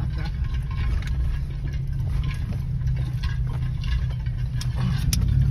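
Truck's engine and tyres rumbling steadily from inside the cab while crawling over a rough dirt track in four-wheel drive, with a few light clicks and rattles.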